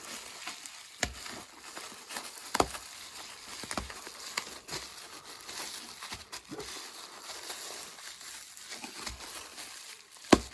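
Packaging being rustled and crinkled by hand while sharpener parts are unpacked, with a few sharp knocks of items being handled or set down, the loudest near the end.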